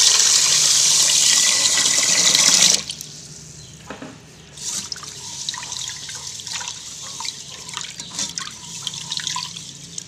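Tap water pouring onto rice in a rice cooker's inner pot, shut off abruptly about three seconds in. Then a hand swishes and rubs the rice in the water with irregular small splashes: a fresh rinse of the rice.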